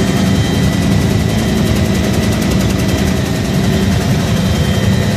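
Helicopter in flight heard from inside the cabin: a loud, steady low rumble of rotor and engine with a fast even beat and thin steady high-pitched whines on top.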